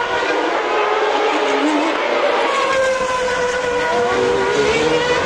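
Formula 1 car engines running at high revs on the circuit, several pitches sliding slowly up and down as cars pass and change speed, over a continuous background din.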